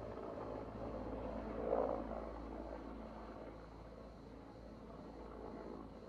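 Firefighting helicopter flying at a distance, a steady rotor and engine sound that swells briefly about two seconds in.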